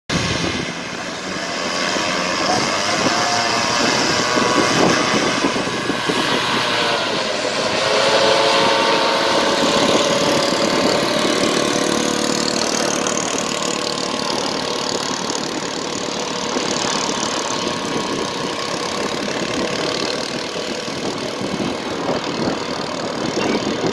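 Engine and propeller of a paramotor trike running at high power through takeoff and climb-out, the engine note sliding up and down a few times in the first several seconds, then holding steadier.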